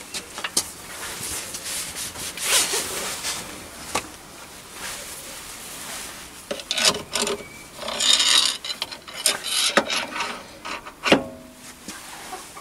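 Metal-on-metal scraping and rubbing as a threaded stainless steel studding drawbar is slid through the Myford ML7 lathe's hollow spindle and the boring head's MT2 taper shank is pushed into the spindle nose. There are irregular scraping runs, the longest about eight seconds in, and a few sharp knocks, the loudest about eleven seconds in.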